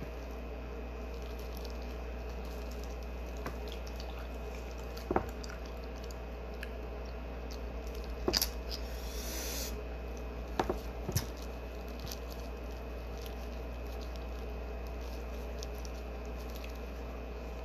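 Wet squishing and crinkling as plastic-gloved hands peel boiled shrimp over a plastic seafood-boil bag, with a few sharp clicks and a brief rustle a little past the middle, over a steady low hum.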